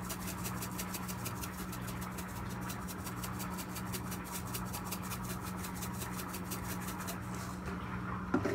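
Dried parsley flakes shaken from a spice shaker in quick, even strokes, about four or five a second, stopping about seven seconds in. A steady low hum runs underneath, and a short knock comes near the end.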